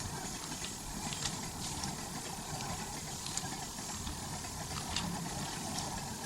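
Steady low rumble of a train running, heard inside a passenger carriage, with a few faint clicks.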